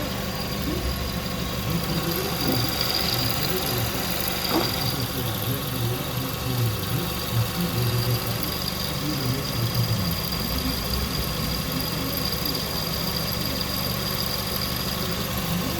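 Kia Sportage 2.0-litre four-cylinder engine idling, with a faint steady high-pitched tone above the engine noise from a noisy idler pulley on the accessory belt, possibly because the pulley needs replacing or the belt tensioner needs adjusting.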